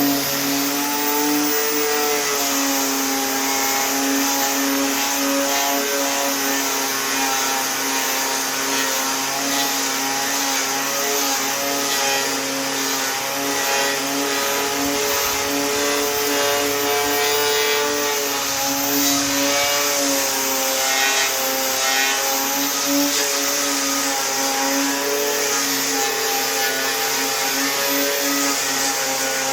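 Electric angle grinder running continuously while grinding the rusted door steel back to bare metal. Its pitch wavers a little as it is pressed into the work, over a steady hiss of abrasion.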